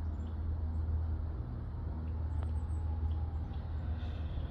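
Outdoor background: a steady low rumble with a few faint, short, high chirps from small birds.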